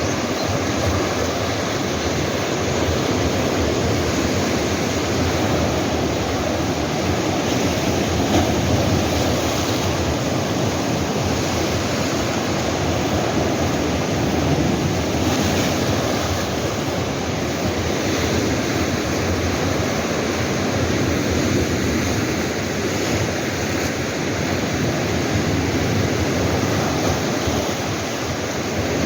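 Sea waves washing against rocks on the shore, a steady rushing surf with slight rises and falls.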